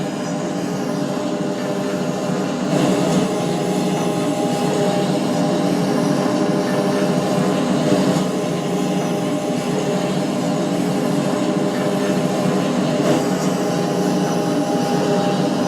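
Passenger train running: a steady rumble with a constant hum over it.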